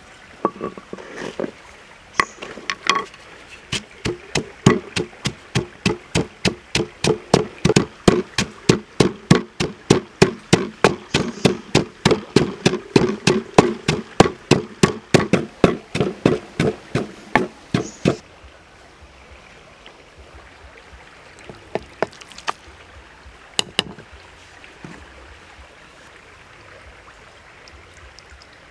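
Wooden pestle pounding salt and seasoning in a wooden mortar: steady knocks, about three a second. The pounding stops about two-thirds of the way through, and after that only a few scattered knocks are heard.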